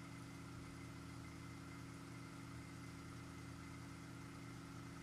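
K40 CO2 laser cutter switched on and standing by: a faint steady machine hum with a thin high whine, unchanging.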